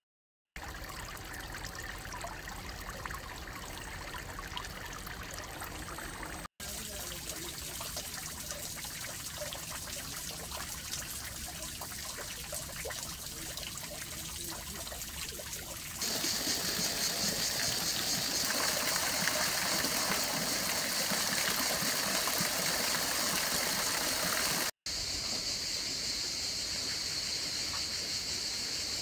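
Water trickling and splashing into a pool, heard as a steady wash across several clips that cut in and out abruptly; it is louder for several seconds past the middle.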